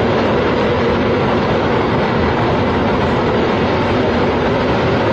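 Steady, loud vehicle or engine noise, unbroken and without distinct beats or changes in pitch.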